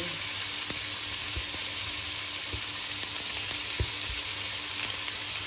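Pork rib pieces and beef chunks sizzling in a little vegetable oil in a large thick-bottomed pot, browning, with a steady hiss. A few soft knocks come through, the clearest about four seconds in.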